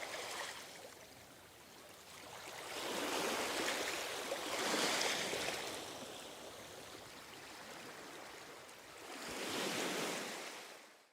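Ocean waves washing onto a shore, the surf swelling and ebbing, with a bigger surge a few seconds in and another near the end before the sound fades out.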